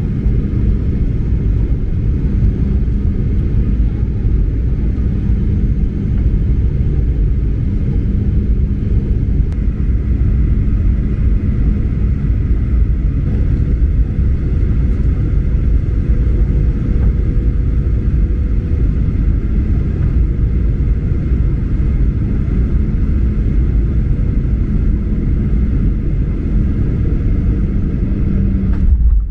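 Steady rumble of a jet airliner's passenger cabin in flight: engine and airflow noise, with a faint steady hum laid over it.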